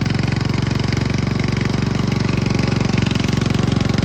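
Remote-control lawn mower's 7.5-horsepower engine running steadily under way, with a fast, even pulse in its note.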